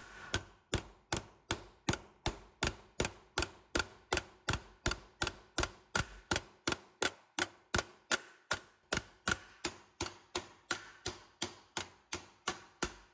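Ball peen hammer tapping a steel rivet on a chainsaw bar's replacement nose tip, backed by a metal corner underneath, in quick even strikes about three a second. The strikes mushroom the rivet head over to fasten the new tip.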